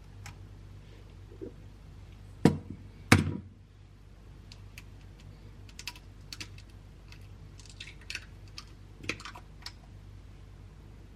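Two sharp knocks against a bowl, then a run of light, irregular clicks and taps of a utensil in the bowl while eggs and mashed banana are worked into pancake batter.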